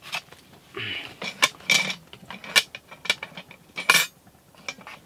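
A cast iron Dutch oven being lifted off a campfire with a stick: a string of sharp metal clinks and clanks, some ringing, with a short scrape about a second in and the loudest clank about four seconds in.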